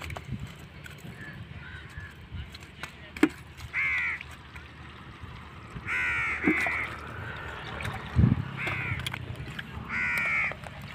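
A crow cawing about five times, a harsh call every two seconds or so, with a double call about six seconds in. A few sharp knocks come in between, the loudest a low thump about eight seconds in.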